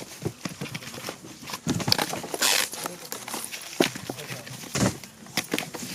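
Irregular knocks, taps and rustling from firework tubes being stacked and packed by hand, with voices in the background.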